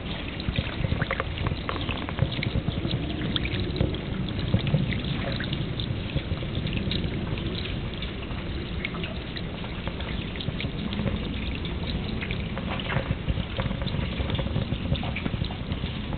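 Rainwater running down a metal gutter downpipe and spilling out at its foot: a steady rushing with many small drips and splashes.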